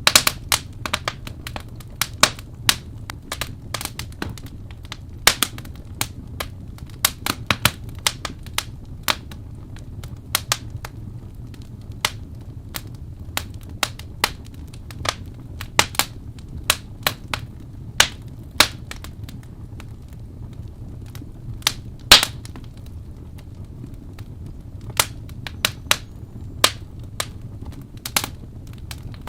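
Wood fire burning in a fireplace: irregular sharp crackles and pops over a steady low rumble of the flames, with one loud pop about 22 seconds in.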